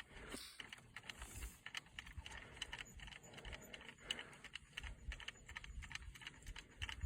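Faint, irregular small clicks and rustles of handling, over a low uneven rumble, as an ice angler pulls in line from a fish.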